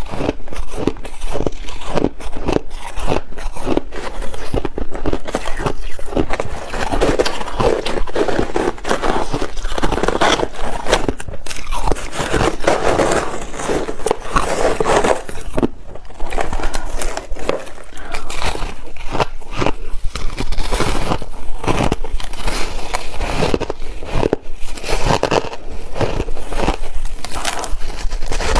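A person biting and chewing ice: a continuous run of crackling crunches, close up.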